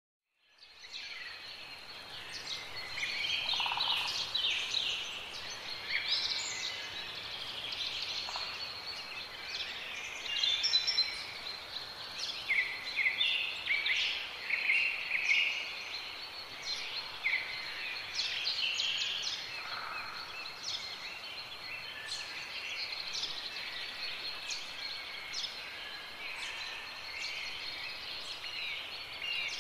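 Many small birds chirping and twittering in overlapping short calls, with a steady thin high tone underneath.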